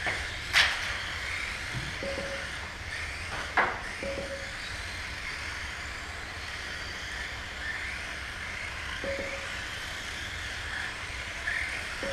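Mini-Z 1:28-scale electric RC cars racing on a foam track: a steady whirring hiss of small motors and tyres. There are two sharp clacks, about half a second and three and a half seconds in, and a few short beeps.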